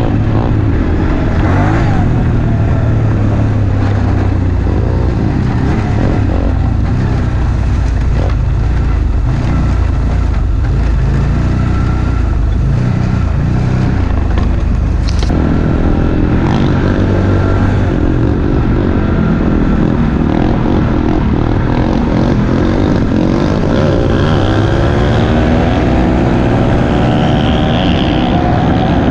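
Pit bike's single-cylinder engine running continuously under way, its revs rising and falling repeatedly in the second half as the bike speeds up and eases off. A brief sharp click about halfway through.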